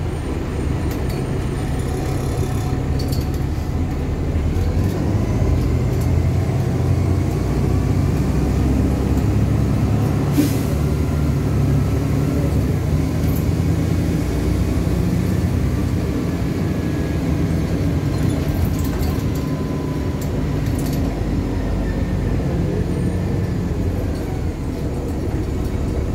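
LiAZ-5293.60 city bus under way, heard from inside the cabin: its diesel engine and drivetrain running steadily, with faint tones that rise and fall as the bus speeds up and slows. A short sharp burst of noise comes about ten seconds in.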